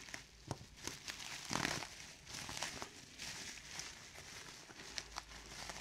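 Plastic bubble wrap crinkling and rustling as it is cut and pulled off a frame, with scattered small clicks of handling.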